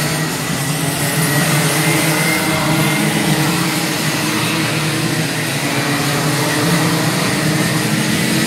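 A pack of 125cc two-stroke racing kart engines running hard on the circuit, several engines overlapping in a steady, high-revving drone whose pitch wavers as they come through the corners.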